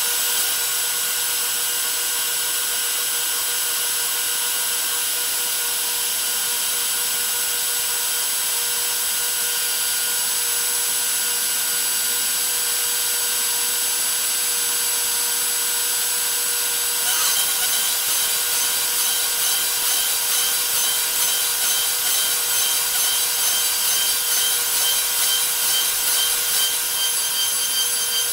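DeWalt 611 trim router spinning at high speed on a CNC machine, its 1/8-inch single-flute bit milling a 1/4-inch aluminium plate: a steady high whine over the hiss and scrape of the cut. A little past halfway the cut gets louder and harsher and begins to waver in level.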